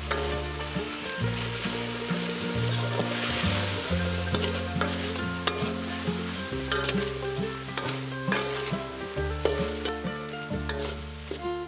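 Beef stir-fry sizzling in a steel wok while a spatula stirs and scrapes it around the pan, with frequent short scraping strokes over a steady frying hiss.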